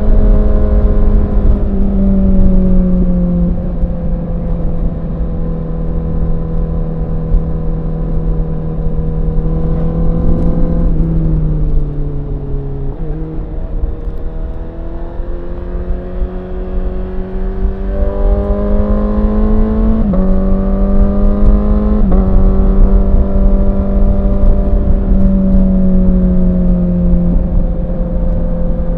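2017 Honda CBR1000RR SP's inline-four engine running hard under way, its pitch sinking as it slows around a third of the way in, then climbing again with two quick gear changes near the two-thirds mark. A steady rushing noise runs underneath.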